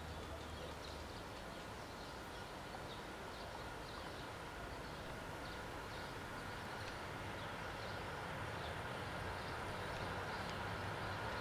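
VL40u electric locomotive with a passenger train approaching from a distance: a faint steady hum with a thin whine, growing slowly louder. Birds chirp repeatedly over it.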